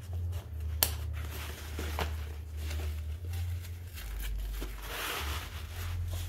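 Nylon fabric of a roll-up camp utensil case rustling as it is folded and strapped shut, with a couple of sharp clicks, the loudest about a second in. A steady low hum runs underneath.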